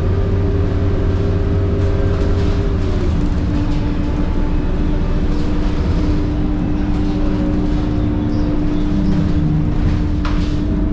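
Scania K230UB bus's 9.3-litre DC9 diesel engine and ZF Ecomat 6HP504C automatic gearbox under way, heard inside the cabin, with the gearbox's steady high whine over the engine's drone. About three seconds in, the whine steps down in pitch as the gearbox changes gear. Two short rattles come near the end.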